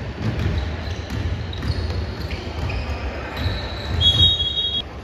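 Basketball play on an indoor court: a ball bouncing in repeated low thumps, with sneakers squeaking in short high squeals.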